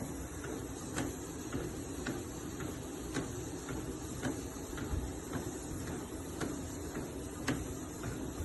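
Walking pad treadmill running: a steady motor and belt hum with footsteps striking the belt about twice a second at an even walking pace.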